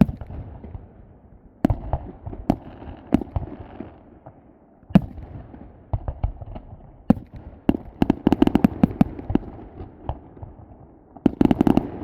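Fireworks exploding: scattered loud bangs, then dense rapid volleys of bangs and crackle about eight seconds in and again near the end.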